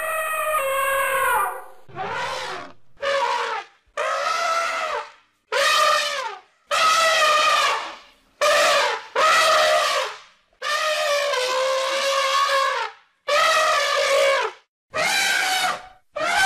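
Elephant trumpeting over and over: about eleven separate calls, each half a second to two seconds long with short silences between, many dropping in pitch at the end.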